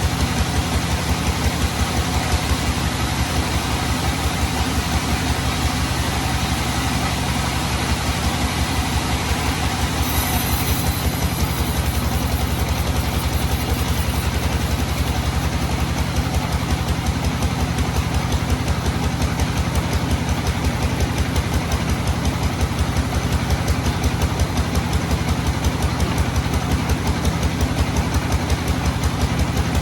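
Sawmill's engine running steadily with an even, rapid beat; a thin high whine comes in briefly about ten seconds in.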